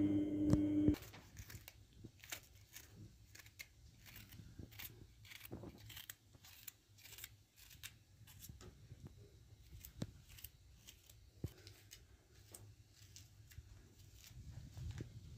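Music stops about a second in. Then come faint, irregular small clicks, snaps and crackles, a few a second, from vegetables being handled and cut by hand.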